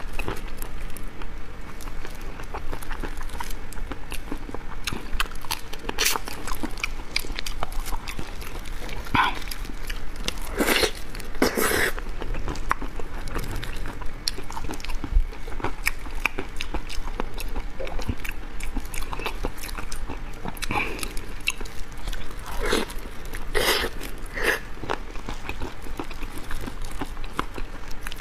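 Close-miked eating of large chili-sauce marinated prawns: irregular wet bites, chewing and sucking of flesh off the shells, with small crunches. Louder bursts come about ten to twelve seconds in and again near twenty-three seconds.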